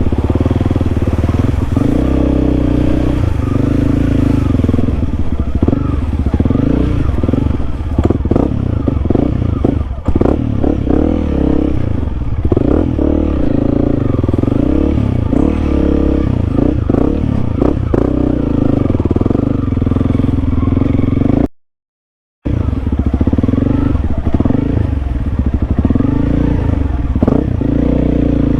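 Honda CRF300L's single-cylinder engine running under way, its pitch rising and falling as the rider works the throttle through slick mud, with rattles and knocks from the bumpy trail. The sound drops out completely for about a second about three-quarters of the way through.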